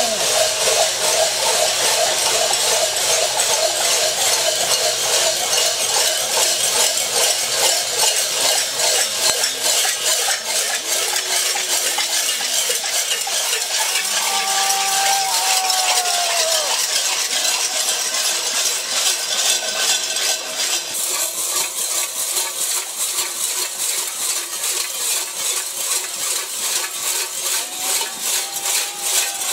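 Continuous metallic jingling and clattering from a walking procession of masked devils in sheepskin and straw costumes, with a couple of short rising-and-falling calls over it about halfway through and again near the end.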